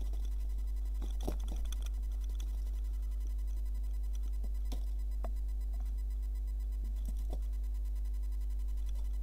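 Steady low electrical hum, with a few faint clicks about a second in, near the middle and near the end.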